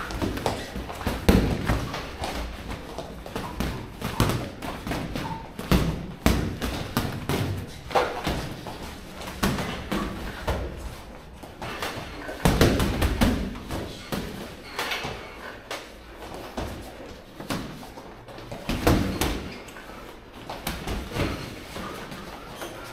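Boxing gloves thudding against gloves, headgear and a chest protector during sparring: irregular punches and flurries of thuds, the loudest about a second in.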